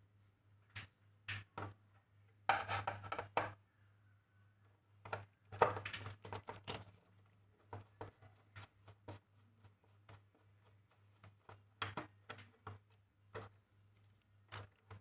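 A metal rod tapping, clicking and scraping against the parts inside an opened split air-conditioner indoor unit, with two short rattling bouts of scraping, about two and a half and five and a half seconds in. Under it runs a faint steady low hum.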